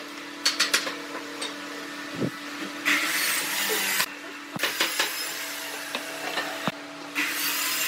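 Pencil scratching along a pine board as a curve is drawn against a bent steel ruler, in scratchy stretches of a second or two, with a few sharp clicks from the ruler being handled. A steady hum runs underneath.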